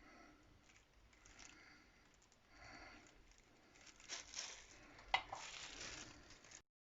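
Faint rustling and light taps from handling, with one sharper click about five seconds in. The sound cuts to dead silence just before the end.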